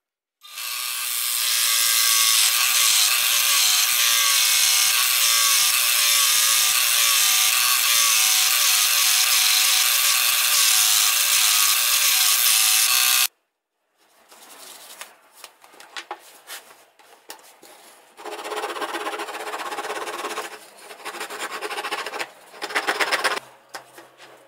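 Electric scroll saw running and cutting a thin wooden board, a steady whirring buzz that stops abruptly about thirteen seconds in. After that come quieter, irregular rubbing and scraping noises with a few sharp knocks near the end.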